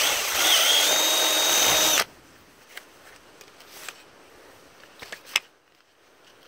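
Cordless drill running for about two seconds, spinning up to a steady whine and then stopping abruptly, while drilling out a mounting hole in a lawnmower's plastic pull-starter housing. A few light clicks follow.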